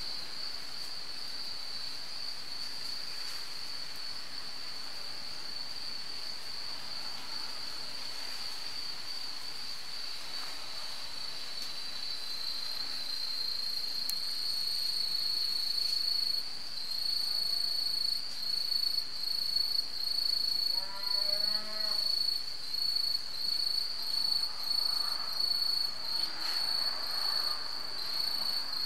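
Insects trilling steadily at one high pitch; about halfway the trill turns into a regular pulse, a little faster than once a second. About three-quarters through, a single drawn-out animal call lasting a second or two, wavering in pitch.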